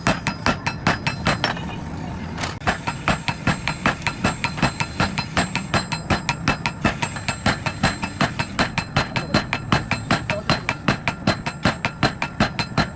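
Hand hammer striking hot iron on an anvil, in a fast, even rhythm of about four blows a second, each with a short metallic ring. The blows pause for about a second near two seconds in, then go on steadily, over a steady low hum.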